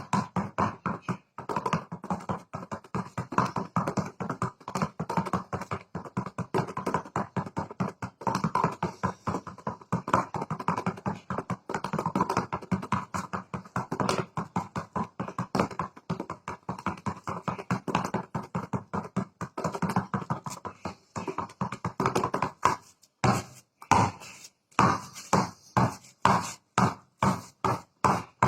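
A fast, continuous run of sharp percussive strikes, several a second. Near the end they slow to separate, evenly spaced strikes, about two or three a second.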